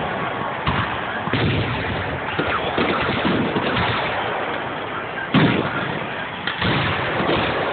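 Aerial fireworks shells going off in a steady string of booms and crackles, with the sharpest, loudest bang about five seconds in.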